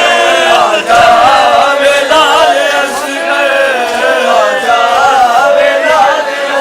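Men's voices chanting a nauha, a Shia mourning lament, together in a loud, continuous group chant.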